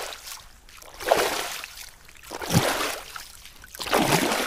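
Stomping splashes in a puddle, one about every second and a half, three in all, each starting with a low thud.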